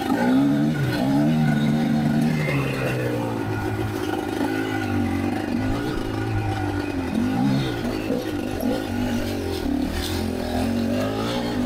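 Kamax KMX 250MT 250cc two-stroke dirt bike engine heard from on the bike while riding. It revs up and down with the throttle, its pitch rising and falling several times.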